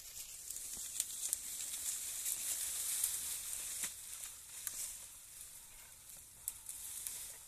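Dry brush and dead leaves burning: a steady hiss with scattered sharp crackles and pops, swelling about a second in and easing off after about five seconds.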